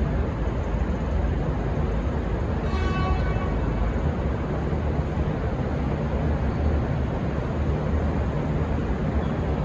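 V/Line VLocity diesel multiple unit running as it pulls out, a steady low-heavy noise of engines and wheels. A brief faint pitched tone sounds about three seconds in.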